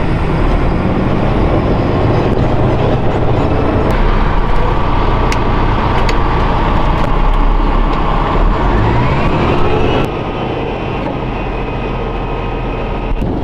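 Dump truck's diesel engine and road noise heard inside the cab while driving, with the engine pitch rising about nine seconds in as it revs. The sound gets suddenly quieter about ten seconds in.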